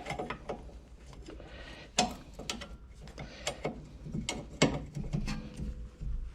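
Irregular metallic clicks and knocks of a wrench working the rear brake caliper bolts.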